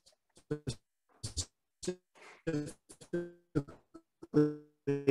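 Choppy, broken-up video-call audio: short fragments of garbled voice cut in and out with dead silent gaps between them, the sign of a failing internet connection dropping the sound.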